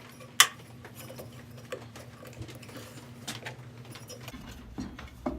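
Scattered small metallic clicks and knocks of hands and tools working the bandsaw's wheel loose from its shaft, with one sharp knock about half a second in, over a steady low hum.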